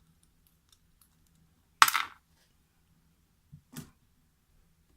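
A padlock and tools being handled on a workbench: one loud, sharp clack about two seconds in, then two softer clicks about a second and a half later.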